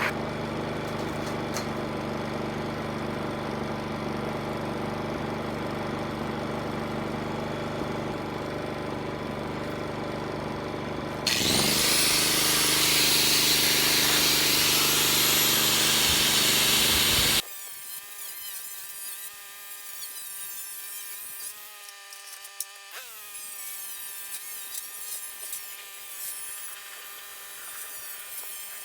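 A power saw running, with a much louder stretch of cutting through material from about eleven seconds in that lasts about six seconds. A quieter steady whine follows.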